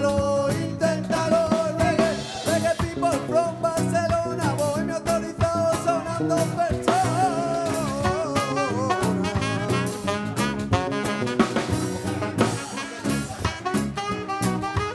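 A live band plays an upbeat, ska-like song on strummed acoustic guitars, electric guitar and drum kit, with a wavering lead melody over a steady beat.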